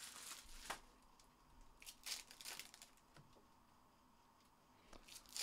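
Faint crinkling and tearing of trading-card pack wrappers and cards being handled, in a few short rustling bursts: near the start, around two seconds in, and again near the end.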